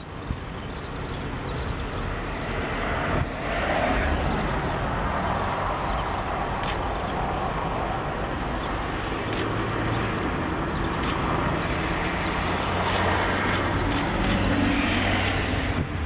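Steady, even rushing background noise, with a few very short high-pitched ticks scattered through the second half and several clustered near the end.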